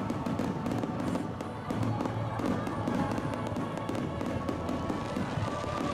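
Fireworks crackling and popping in quick succession, with music playing alongside.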